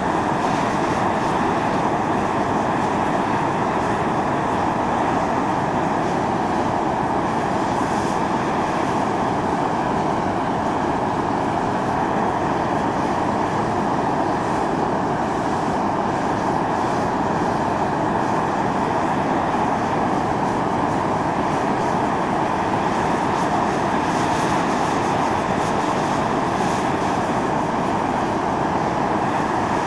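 Volcanic fumarole on Atosanupuri (Mt. Iō) venting steam: a steady, unbroken hiss that holds at the same level throughout.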